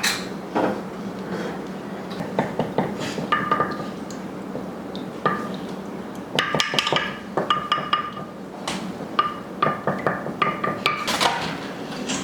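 Dishes and cutlery clinking and knocking, as in kitchen clatter. Several of the knocks leave a short ringing tone, like a plate or glass being struck, coming in clusters.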